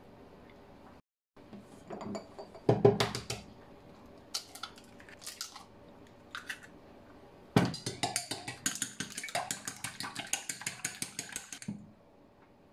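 A few knocks and taps of eggs being cracked into a stainless steel mixing bowl. From a little past halfway, cooking chopsticks beat the eggs against the bowl in rapid clicking, about eight strokes a second, which stops near the end.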